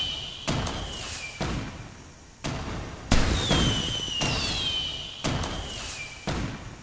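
Fireworks sound effects: six sharp bangs, each dying away, with a long whistle falling in pitch heard twice among them.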